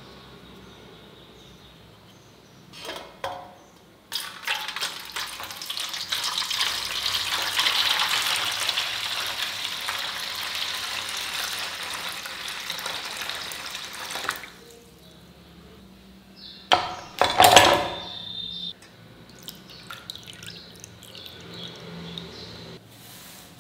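Water poured from a jug onto a silicon carbide water sharpening stone in a stainless steel plate, splashing steadily for about ten seconds to soak the stone before sharpening. About two-thirds of the way through comes a sharp knock and a short, loud rattle, the loudest sound here.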